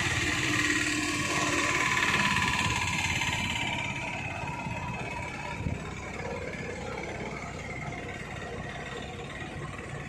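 Small vehicle engine running while driving along a road, with road and wind noise. It is louder for the first few seconds, then settles lower, with one short knock about halfway.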